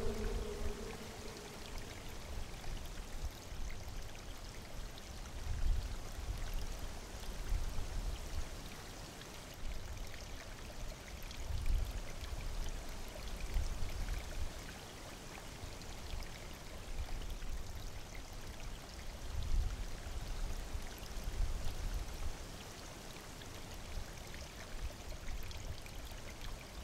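Steady rain, with a low rumble underneath that swells and fades every few seconds.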